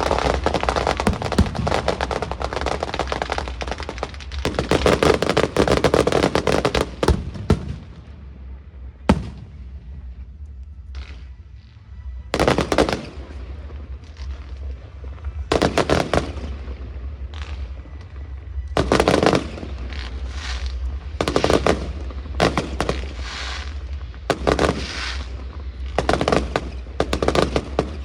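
Fireworks going off in rapid crackling volleys. The volleys thin out after about seven seconds, with one sharp crack in the lull, then come back in repeated bursts.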